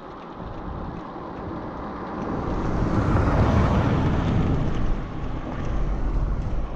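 Wind rumbling on the microphone of a moving bicycle, with a rushing sound that swells to its loudest about three to four seconds in and then eases off.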